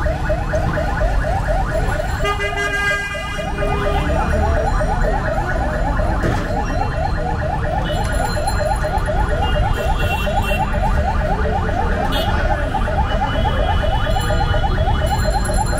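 An electronic alarm warbling continuously in rapid, evenly repeating rising chirps over a steady low street rumble. A horn sounds for about a second and a half near the start.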